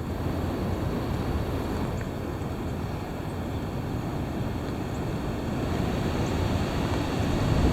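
Heavy wind blowing hard and buffeting the microphone: a dense, rumbling rush with no pitch. It holds steady, then grows louder near the end as a gust builds.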